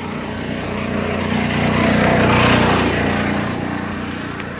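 Small golf-cart shuttle driving past close by, its motor hum growing louder to a peak about halfway through and then fading as it moves away.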